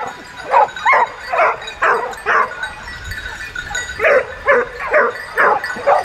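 Dog barking repeatedly, about two barks a second, in two runs of about five barks with a short pause around the middle.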